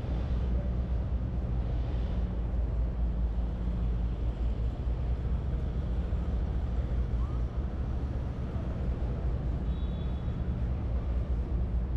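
City street traffic ambience: a steady low rumble of passing vehicles with a general street hum, and no single event standing out.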